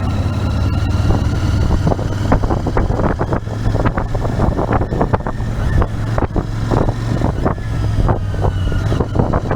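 Royal Enfield Interceptor 650's 648 cc parallel-twin engine running steadily while the motorcycle is ridden, with wind buffeting the microphone.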